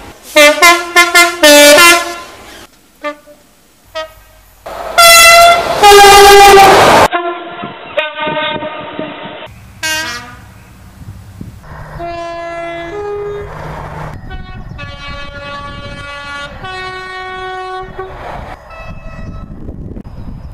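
Horns of several different British trains sounding in turn, one recording cut straight into the next: a quick run of short toots first, a long loud blast a few seconds in, then quieter soundings over the rumble of a passing train in the second half. Some blasts step between two notes.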